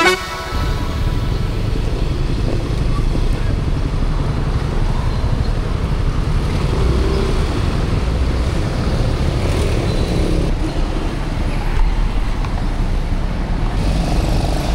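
Steady riding noise of a small motor scooter on a town road, picked up by an action camera's built-in microphone: a low, continuous rumble of engine, wind and passing traffic.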